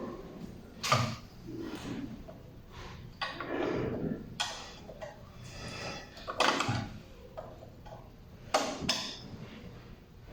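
Scattered clicks, knocks and clatter of small hard objects being handled: a handful of sharp knocks spread irregularly over several seconds.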